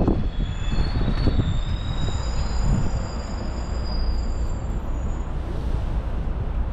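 Low, steady rumble of a tour bus in motion, with a thin high squeal, like brakes, over the first five seconds or so.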